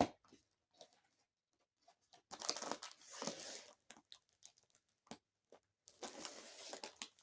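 Parcel packaging being torn and crinkled open by hand, in two rustling stretches about two seconds in and about six seconds in, with a few small clicks between.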